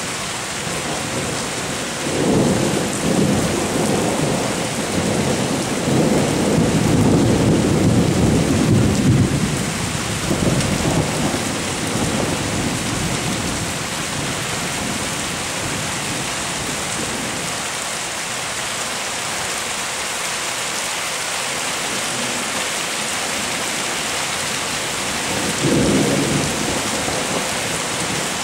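Thunderstorm: steady rain hissing throughout, with a long rolling rumble of thunder starting about two seconds in and lasting some eight seconds, and a shorter burst of thunder near the end.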